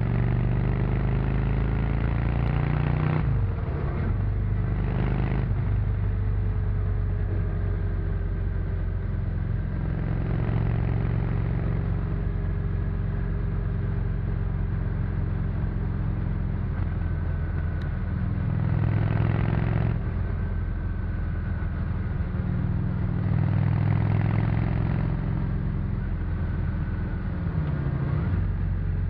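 Honda VT600C Shadow's V-twin engine through its stock exhaust, riding on the road: the engine note climbs and falls with the throttle, with a short drop and rise about three seconds in like a gear change. A rush of wind noise swells a few times.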